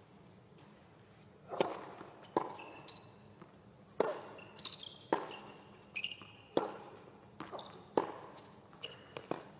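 Tennis rally on a hard court, beginning about one and a half seconds in: the ball is struck off the rackets and bounces on the court at a steady pace, roughly one sharp hit every second or so. Between the hits, tennis shoes give short high squeaks on the court surface.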